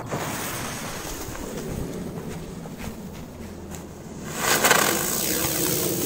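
Small airplane-type firework going off: about four seconds in, a loud rushing hiss with fine crackle starts and keeps going.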